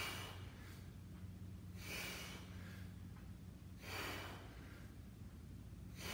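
A man breathing hard from exertion, with a loud exhale about every two seconds. A steady low hum runs underneath.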